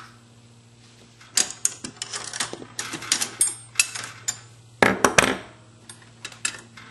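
Metal hand tools clinking and clattering as a wrench is picked out from among them: a quick run of sharp clanks starting about a second and a half in, with the loudest cluster near five seconds.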